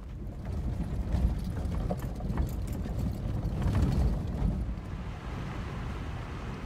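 Vehicle driving down a rough dirt road, heard from inside the cab: a low rumble with many rattles and knocks. About two-thirds of the way in it settles to a steadier, quieter rumble.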